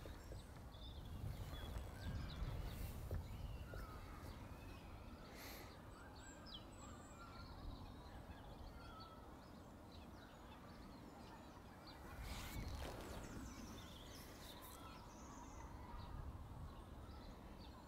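Faint outdoor ambience: a low wind rumble on the microphone, stronger about a second in and again about twelve seconds in, with scattered distant bird calls and a couple of soft knocks.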